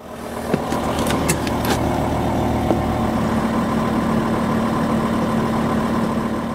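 Volkswagen van's engine idling steadily in deep cold, heard from inside the cab, with a few sharp clicks between one and two seconds in. The sound fades in over the first second and fades out near the end.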